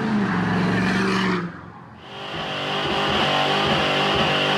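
A diesel pickup truck's engine pulls hard and drops away about a second and a half in. Then a Mustang's engine revs through a burnout with a steady tire squeal over it.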